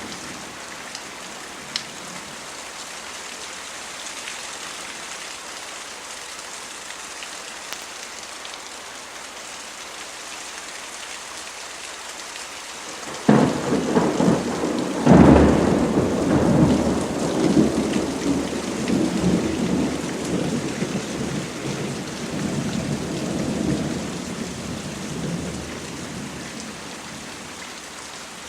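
Steady rain falling, with a sudden thunderclap about halfway through, a second crack a couple of seconds later, and a long rolling rumble that slowly dies away under the rain.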